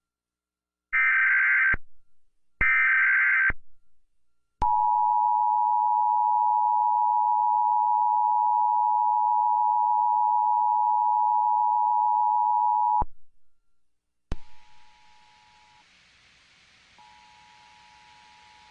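Emergency Alert System broadcast: two short screeching digital header bursts, then the steady two-tone EAS attention signal held for about eight seconds before cutting off sharply. After a click, a faint hiss follows with the two-tone signal much quieter, dropping out briefly near the end.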